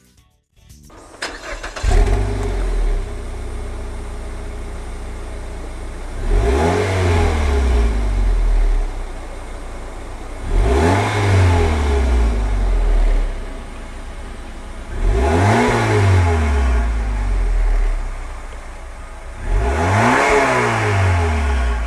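Mazda Atenza Sport's 2.5-litre four-cylinder engine, breathing through an HKS LEGAMAX Premium stainless steel muffler, starting up about two seconds in and settling to idle. It is then blipped four times, each a rise and fall in revs lasting two to three seconds.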